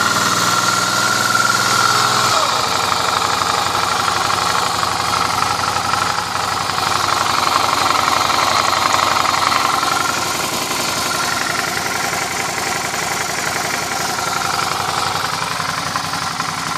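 Suzuki V-Strom motorcycle engine running at idle, carrying the strange noise its owner is trying to identify. The engine note changes abruptly about two seconds in, and a high whine fades in and out over it.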